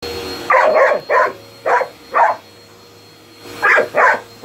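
A dog barking at an upright vacuum cleaner pushed toward it: a quick run of about five sharp barks, a pause, then two more.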